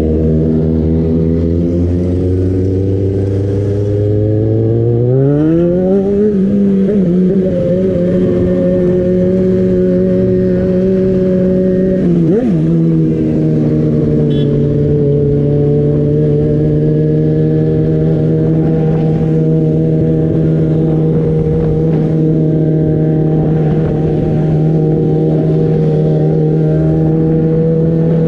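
Yamaha XJ6's inline-four engine heard from the saddle while riding. Its pitch climbs about five seconds in as the bike accelerates, then holds a steady cruising note.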